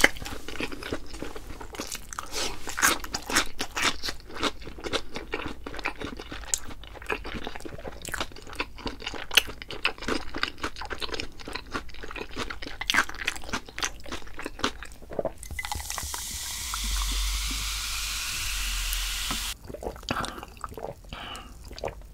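Close-miked crunching and chewing of crispy fried food, crisp bites coming in quick irregular clusters. Near the end, a steady rushing hiss lasts about four seconds before the crunching resumes.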